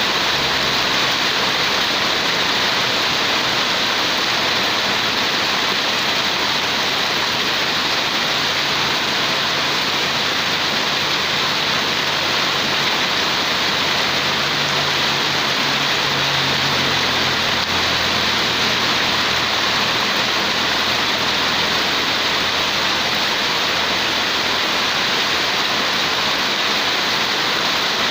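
Steady, even rainfall. A faint low hum sits underneath.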